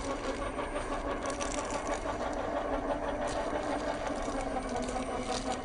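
Electric drive motor and geared drivetrain of a 1/10-scale Lesu Unimog 406 RC truck whining steadily as it drives, with a few short clicks.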